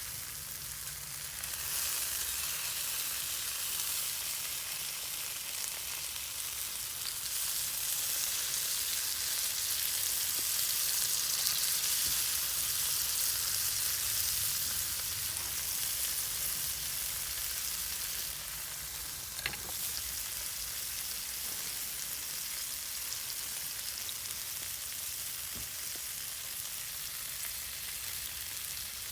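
Food sizzling steadily on a hot iron teppanyaki plate over a campfire, a little louder in the middle, with one sharp click about two-thirds of the way through.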